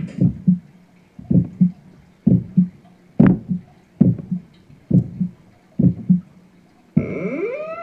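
Electronic keyboard sound-effect voice playing pairs of low thumps, about one pair a second; near the end a sustained synthesizer tone starts, swooping up and down in pitch.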